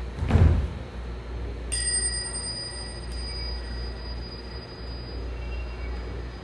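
A body thuds onto a wooden floor about half a second in as a dancer drops to the ground. Just under two seconds in, a bell is struck once and rings on, slowly fading, over a low steady rumble.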